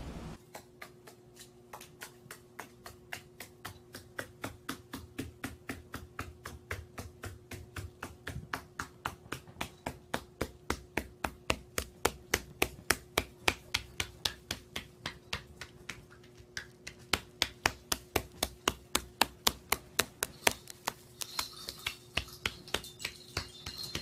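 A small parrot's claws tapping on a wooden floor as it walks and runs: a steady train of sharp clicks, about three to four a second, over a faint steady hum.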